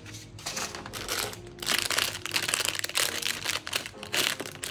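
Clear plastic packaging bag crinkling as it is handled and squeezed, in irregular bursts that grow louder about two seconds in.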